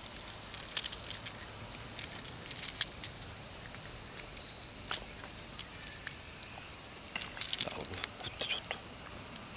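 Steady high-pitched chorus of insects, with a few faint clicks scattered through it.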